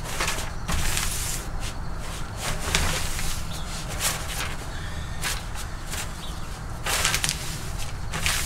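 Pink butcher paper rustling and crinkling as gloved hands fold it tightly around a brisket, in irregular bursts, the longest about seven seconds in.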